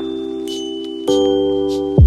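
Background music: a sustained chord with high chime-like bell notes over it, changing to a new chord about a second in.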